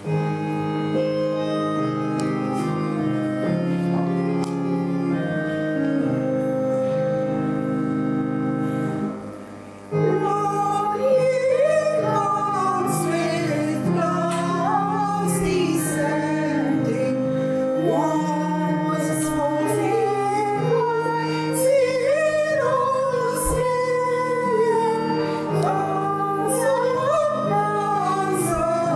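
Music: sustained keyboard chords for the first several seconds, then a woman's solo voice comes in about ten seconds in, singing a slow melody over the keyboard accompaniment.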